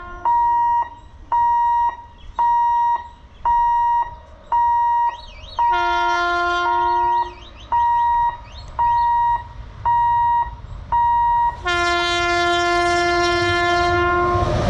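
Level crossing warning signal beeping about once a second as a train approaches, while an electric locomotive's horn sounds twice: a blast of about a second and a half around 6 s in, then a long held blast from about 12 s in.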